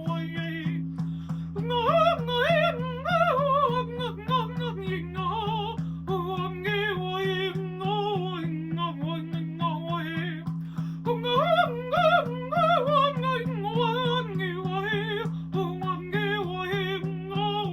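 A woman's voice singing wordless, wavering improvised tones in vocal trance style over a steady low drone that pulses in an even rhythm. Her voice swoops up high about two seconds in and again about twelve seconds in.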